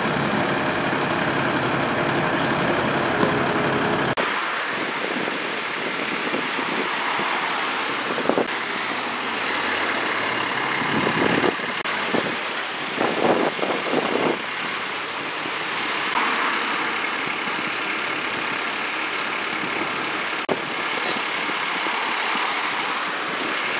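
Engine and road traffic noise: a heavy engine running close by for the first four seconds, stopping abruptly, then a steady hum of traffic with a few brief louder sounds about twelve to fourteen seconds in.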